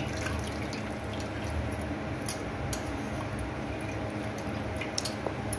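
Water splashing and dripping as hands squeeze soaked dried bitter gourd pieces in a bowl of water, with a few sharp drips standing out, over a steady low hum.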